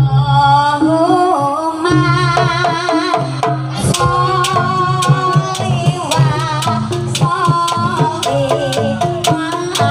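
Live Javanese jaranan gamelan music: kenong gong-pots struck with a mallet and drum strokes, with a wavering high melody line over them. From about four seconds in, sharp drum strokes come fast and steady.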